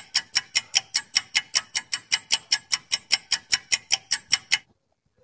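Countdown-timer clock-tick sound effect: rapid, even ticks, about five a second, that stop abruptly near the end.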